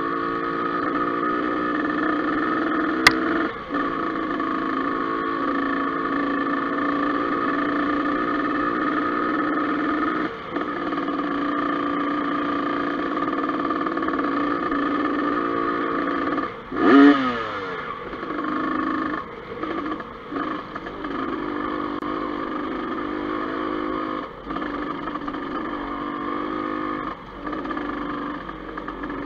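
Dirt bike engine running at a steady pitch while riding along a gravel trail, the throttle easing off briefly several times. There is a sharp click about three seconds in, and a short loud burst around the middle, after which the engine pitch falls.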